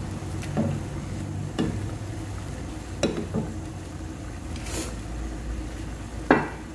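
A metal ladle and spatula stir a simmering tomato-and-chili sauce in a frying pan, with several sharp knocks and clinks of the utensil against the pan, the loudest near the end. Under it runs a steady low hum.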